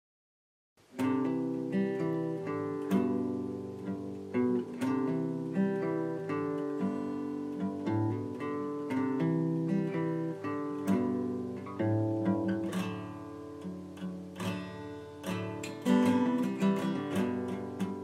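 Intro music played on acoustic guitar: a steady stream of plucked notes, starting about a second in.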